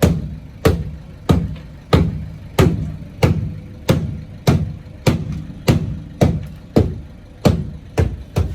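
A steady rhythm of sharp, ringing knocks, about one and a half a second, with a few coming closer together near the end.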